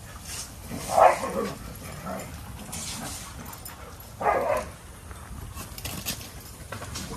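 A dog barking twice, once about a second in and again about three seconds later.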